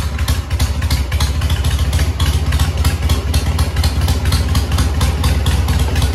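1979 Harley-Davidson Super Glide's Shovelhead V-twin engine idling with the choke on, just started, with a steady, rapid beat of firing pulses.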